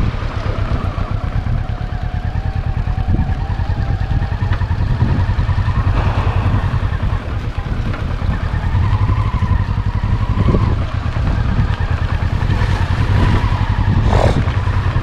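Motorcycle engine running steadily while the bike is ridden, its note rising a little in pitch partway through.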